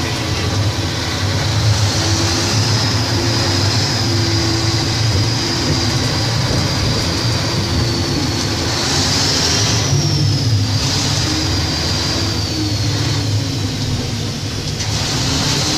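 Heavy open-cast mining machinery running close by: a steady low engine-and-motor drone with a high whine that rises and falls about two-thirds of the way through, while a lower tone slides down.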